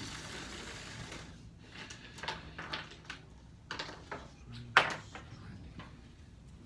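Scattered clicks and knocks of small toy pieces being handled and set down, with one sharp knock a little under five seconds in, the loudest of them.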